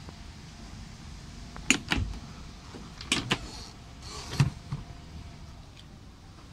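RamBox bed-side storage bin on a Ram pickup being unlatched and opened: two quick pairs of sharp latch clicks, about two and three seconds in, then a brief rustle and a dull thump as the lid swings up.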